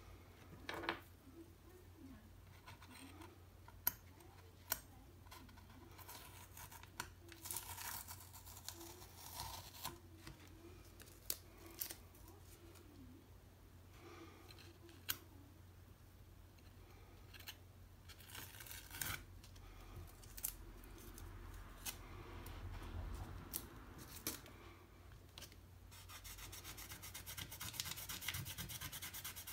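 Scalpel blade scratching and scraping at painted watercolour paper in short bursts, with a few sharp light taps. Near the end comes a run of rapid, fine scratching strokes across the paper.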